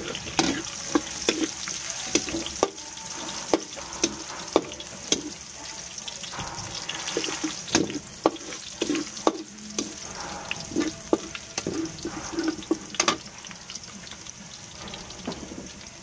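Chopped garlic sizzling in hot oil in a pan while it is stirred, a steady hiss broken by frequent sharp pops and clicks.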